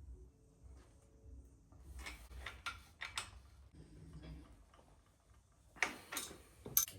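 Light irregular clicks and taps of metal bicycle parts and tools being handled: a cluster of them a couple of seconds in and another, sharper group near the end, over a faint low hum.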